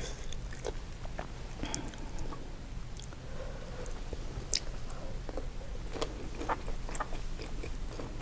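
Close-miked chewing and biting of seafood-boil food, with short wet smacks and small clicks scattered throughout.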